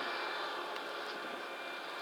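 Steady mechanical drone of the crane vessel's engines and winch machinery running, an even noisy hum with a few faint steady tones through it.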